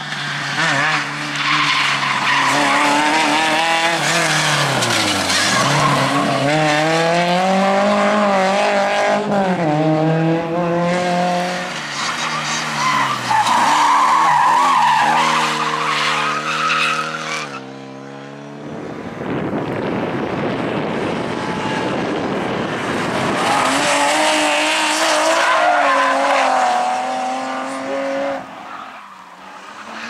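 Rally cars driven flat out in turn: engines revving high and dropping back through gear changes, with tyres squealing and skidding as the cars slide sideways. Just past halfway the engine note falls away for a few seconds, leaving mostly tyre and road noise, before hard revving returns.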